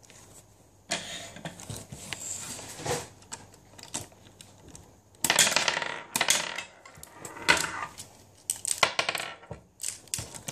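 Cross Fight B-Daman marbles and small plastic game pieces clicking and clattering in a plastic toy stadium, in several short rattling bursts, the longest about five seconds in.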